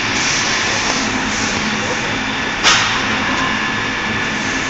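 Folder gluer for corrugated cardboard running with a steady mechanical noise, with one sharp clack about two and a half seconds in.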